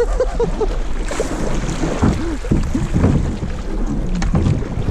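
River water rushing and splashing around a kayak's hull as it runs a shallow gravel riffle, with wind buffeting the microphone.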